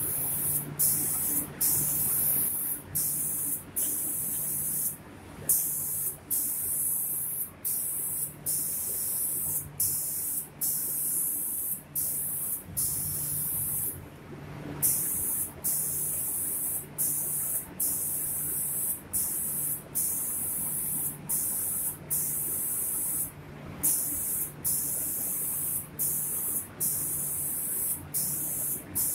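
Automatic wood-door spray painting machine spraying: the spray gun's hiss cuts off briefly about once a second as it sweeps back and forth over the doors, over a low machine hum.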